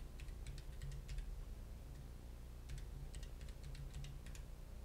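Computer keyboard being typed on: faint key clicks in two quick runs, one in the first second and another from under three seconds in, over a low steady hum.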